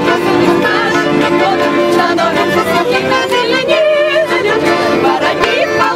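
A group of women singing a song together to the accompaniment of two Fantini button accordions.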